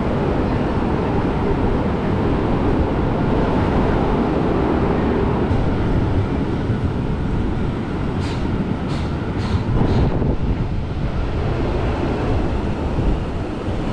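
Uday Express train running on the line, a steady rumble of wheels on track, with a few sharp clicks about eight to ten seconds in.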